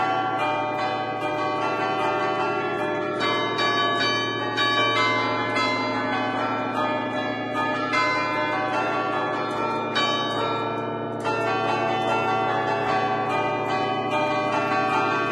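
Concert of ten church bells in A, cast by Barigozzi in 1950, played from a lever keyboard in a traditional allegrezza tune. The bells are struck in quick succession and their notes overlap and ring on.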